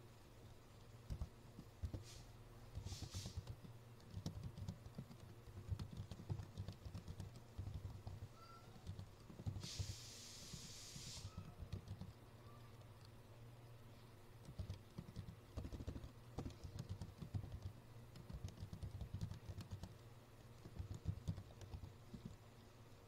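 Computer keyboard typing in irregular runs of keystrokes, over a steady low hum. A brief hiss sounds about ten seconds in.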